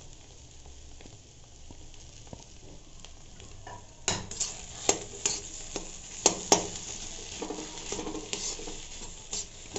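A spatula stirring and pressing spiced potato stuffing in a metal kadhai over a faint frying sizzle. From about four seconds in come sharp, irregular scrapes and clicks of the spatula against the pan.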